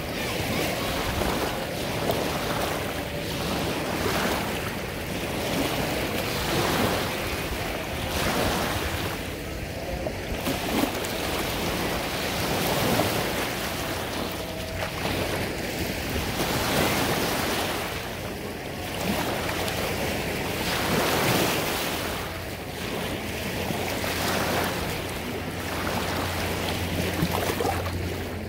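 Small lake waves washing in and breaking in the shallows at the shoreline, swelling and easing every second or two, with wind buffeting the microphone.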